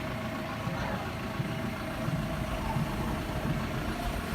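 A vehicle engine running steadily: a low rumble with a faint steady whine above it.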